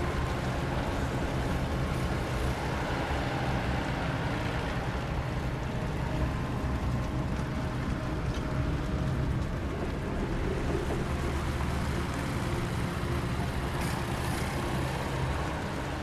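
Fire truck engine running steadily as the truck drives along a dirt road, a continuous low rumble with road noise.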